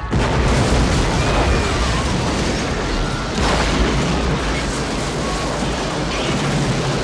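A van blowing up: a sudden blast at the start, then a long rumble of fire and flying debris, which surges again about three and a half seconds in.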